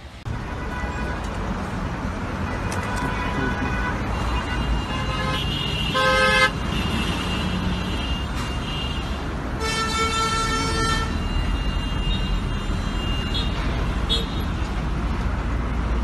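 Steady rumble of highway traffic with car horns honking: a short loud blast about six seconds in and a longer one about ten seconds in.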